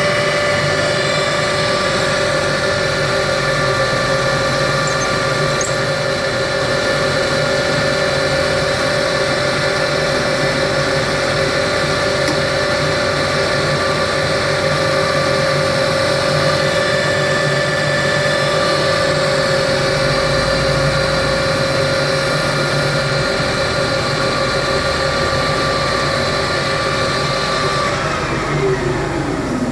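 South Bend Nordic 15 metal-turning lathe running under power, a steady machine whine of several tones. Near the end the pitch falls away as the spindle winds down.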